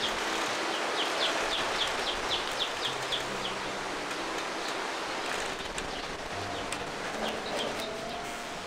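Outdoor ambience with a steady hiss, over which a bird calls a rapid series of short high chirps, about four a second, for the first three seconds, with a few more chirps near the end.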